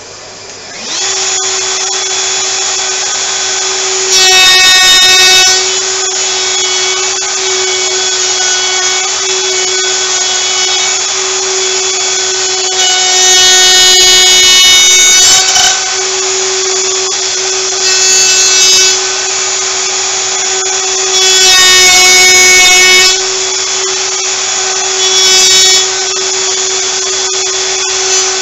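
Plunge router spinning up about a second in, then running steadily with dust suction on the jig, getting louder and harsher five times as the bit is plunged and cuts through the wood, routing a joint notch in a jig.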